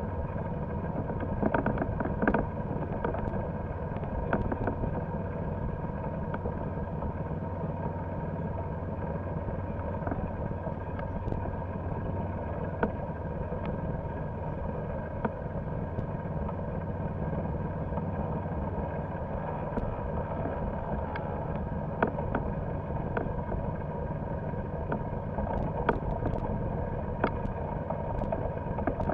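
Golf cart driving steadily across grass, its motor droning evenly, with occasional short knocks and rattles.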